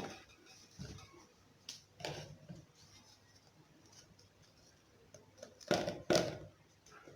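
Faint kitchen handling sounds as oat flour is put into a mixing bowl: a few light clicks and rustles, then two louder short scrapes or taps near the end.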